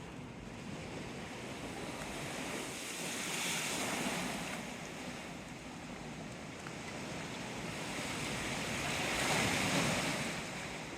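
Waves washing on the bay shore in strong wind, a steady rushing noise that swells twice, about three seconds in and again more loudly near the end.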